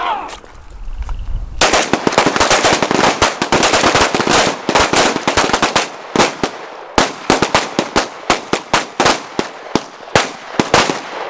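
Rapid pistol fire from several shooters on a firing line at once: about a second and a half in, shots begin so close together that they run into a dense string. They then thin into separate, quick shots.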